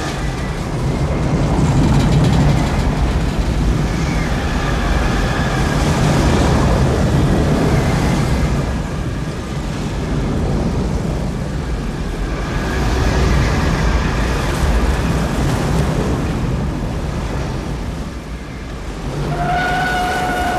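Film sound-effects mix of a tornado scene: a continuous loud rushing roar of wind and moving vehicles, swelling and easing. Near the end a steady, horn-like tone comes in and holds.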